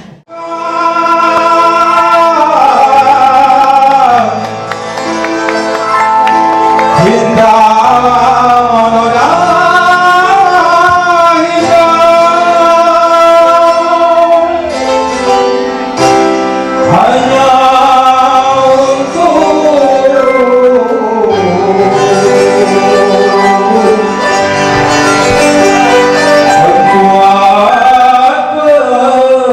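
Live Orkes Melayu (dangdut) band music played loud through a PA, with a wavering, gliding vocal melody over the band's instruments.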